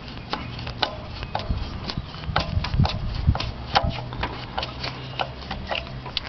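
Quick, irregular clicking, several clicks a second, from a ratchet or driver tightening the ignition coil's mounting screws into the distributor.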